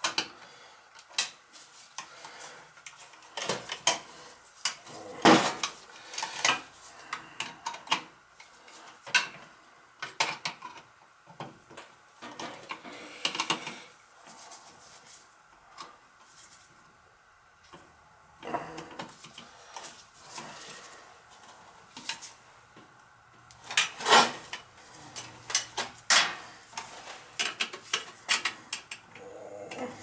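Irregular metallic clicks, clinks and rattles of a screwdriver and wires being worked into the terminals of a Honeywell aquastat boiler control, with louder knocks about five seconds in and again near the end.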